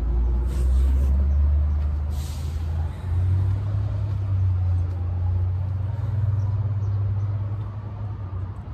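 A low, steady engine-like rumble, such as a large vehicle running nearby, that steps up slightly in pitch about three seconds in, with a brief hiss about two seconds in.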